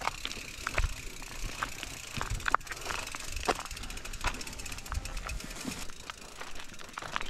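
Bicycle clattering over a rough dirt trail: scattered sharp clicks and knocks over a low rumble.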